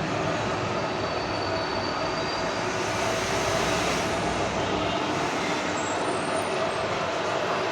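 Enshu vertical milling machine running, a steady mechanical noise with a faint whine.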